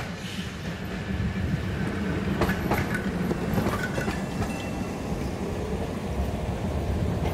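PCC streetcar running on rails: a steady low rumble with the wheels clicking over rail joints, several sharp clicks close together a few seconds in. It grows louder over the first second or so.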